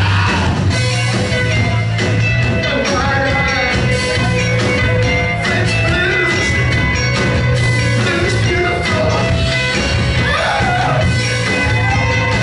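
A rock band playing live: heavy bass and drums under electric guitar, with a man singing.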